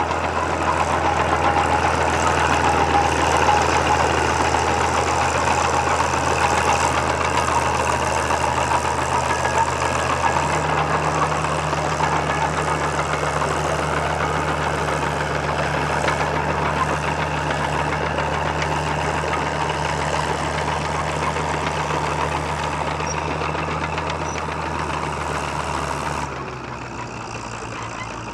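Fiat 1355C crawler's 8.1-litre Fiat-Iveco diesel engine running steadily under load while pulling a plough. Its note steps up slightly about ten seconds in, and the sound drops and changes abruptly near the end.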